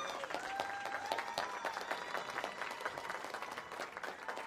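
A crowd applauding, with a few voices calling out and cheering over the clapping.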